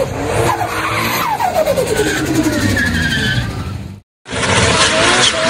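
A car's engine revving with tyres squealing, the engine note falling away, cut off by a brief dead silence about four seconds in; more tyre squeal and engine noise follow after the gap.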